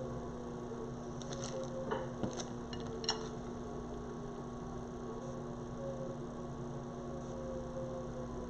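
A steady electrical hum, with a few light clicks about one to three seconds in.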